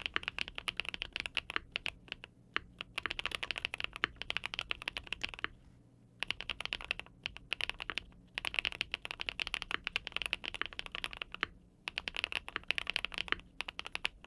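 Monsgeek M1 custom mechanical keyboard with linear switches being typed on in fast runs of keystrokes. Short pauses break the runs, about five and a half seconds in and a few more times near the end.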